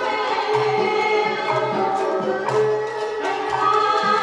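Traditional Vietnamese water puppet theatre music: voices singing over an instrumental accompaniment with short repeated low notes, about two a second.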